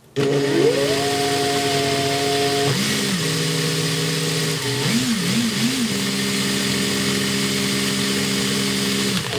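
Cordless drill running as a small bit drills out the plastic air inlet of a LEGO pneumatic switch. It starts abruptly, its pitch rises and then drops, wavers a few times, then holds steady before cutting off near the end.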